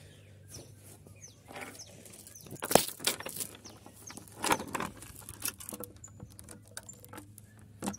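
Scattered clicks and knocks of handling at a wooden corral gate, with one sharp knock about three seconds in. Near the end, a metal chain clinks as a hand works it loose around the gate post.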